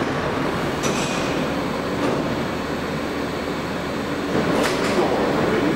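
Kawasaki R143 subway train standing at the platform with a steady running noise, its doors sliding open partway through, with a few brief sharp clicks and clunks.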